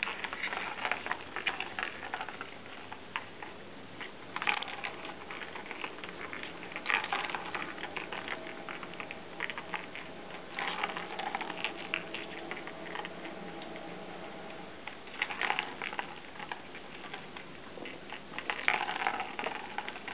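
Plastic cat ball-track toy clattering as a kitten bats its ball around the circular track, in about half a dozen bursts of rapid clicking and rattling.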